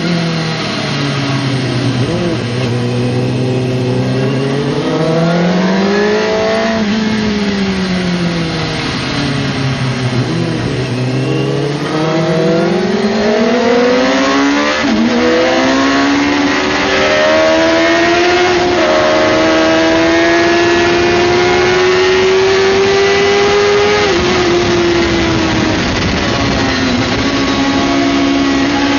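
Suzuki GSX-R600's inline-four engine heard from the rider's seat, with rushing wind noise. The revs fall low for a slow corner, rise and fall once more, then climb through the gears in several steps before easing off near the end and holding steady.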